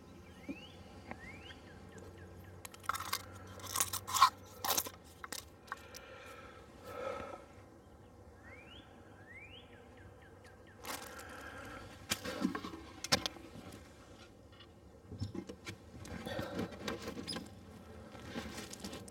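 Wooden beehive equipment and glass feeder jars being handled: a string of sharp knocks, clinks and scrapes as jars are set down on the wooden inner cover and a hive box is lowered into place, with rustling between.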